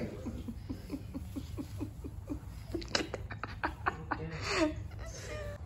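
A person laughing in a quick run of short, even bursts, followed by a few sharp light clicks about three seconds in.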